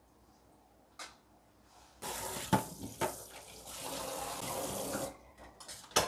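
Water poured into a hot stainless steel wok of stir-fried napa cabbage, hissing and sizzling for about three seconds from about two seconds in, with two sharp knocks of the metal spatula against the wok.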